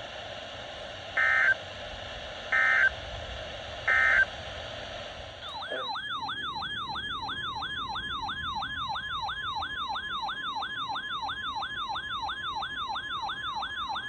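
Weather radio audio over a steady hiss: three short bursts of digital data tones, typical of the SAME code that frames a NOAA alert. Then an electronic siren-like alarm tone sweeps upward over and over, about two and a half times a second.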